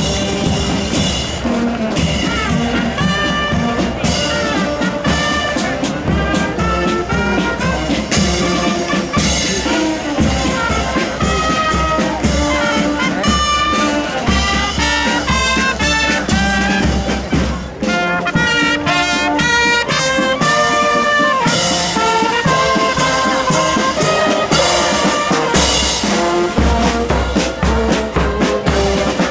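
Military marching band playing a march: trumpets and other brass carry the tune over bass and snare drums beating a steady marching time.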